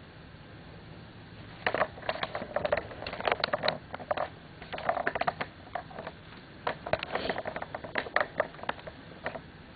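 Quick clicks and short scrapes of a utensil against a frying pan holding cooking pancakes, coming in three bunches over several seconds over a faint steady hiss.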